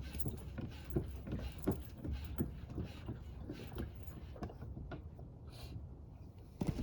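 A Honda Pilot on a short test drive, just after new rear shocks were fitted: a steady low road and engine rumble with light knocks and clunks about once or twice a second.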